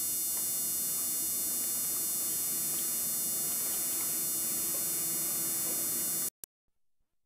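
Steady electrical hum and hiss with a row of thin steady high tones in the recording, nothing else standing out; it cuts to silence about six seconds in.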